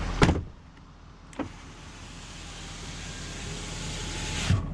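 2011 Ford F-250 Super Duty's 6.7-litre Power Stroke turbo-diesel V8 being shut off: a sharp clunk a moment in, after which the running noise drops away to a low hum. A faint click follows about a second and a half in, and another knock comes near the end.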